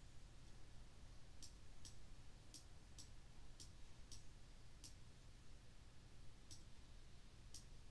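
Computer mouse button clicking: about nine light clicks at irregular intervals, some in pairs, over a faint low hum.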